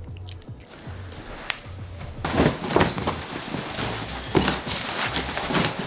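Clothes and gear rustling and knocking as they are handled and packed into a large fabric sports duffel bag, starting about two seconds in, over background music with a low bass pulse.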